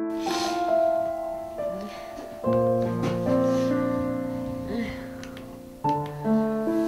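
Soft background piano music playing slow, sustained chords, with new chords struck about two and a half seconds in and again near the end.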